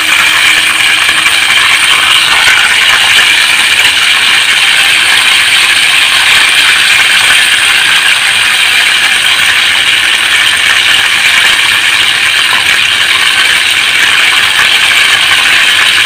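Flour-coated chicken pieces deep-frying in hot oil in a stainless steel pot: a loud, steady, dense crackling sizzle.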